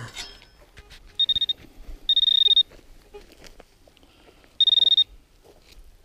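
Handheld metal-detecting pinpointer sounding a high-pitched electronic tone three times, about a second, two seconds and four and a half seconds in, each lasting about half a second, as its tip is probed into freshly dug soil: each tone signals metal close to the tip.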